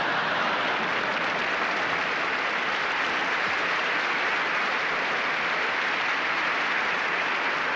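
Audience applauding steadily without a break.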